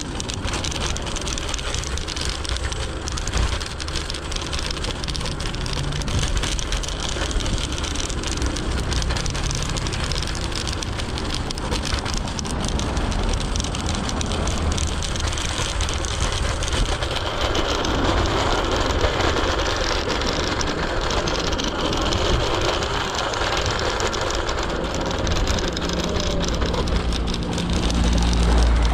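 Riding noise of a Segway Ninebot ES4 electric scooter on a city street: a steady rumble of its wheels on the road surface under a hiss of moving air and traffic. The noise grows louder and rougher about two thirds of the way through, and a low steady hum with a heavier rumble comes in near the end.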